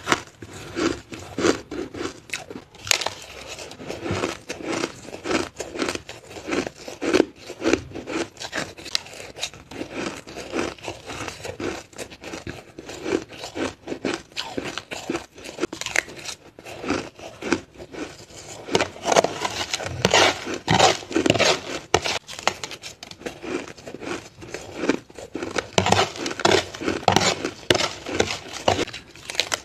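Close-miked chewing of crushed ice: a rapid, continuous crackle of small crunches, with louder stretches about two-thirds of the way through and again near the end, along with a metal spoon scraping crushed ice in a plastic tray.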